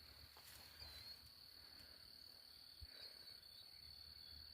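Near silence, with a faint, steady, high-pitched insect trill.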